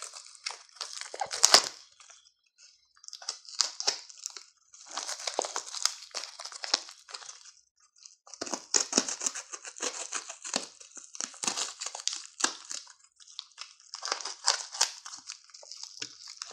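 Plastic packaging crinkling and rustling as a shipping package is opened by hand, in several bursts with short pauses between them.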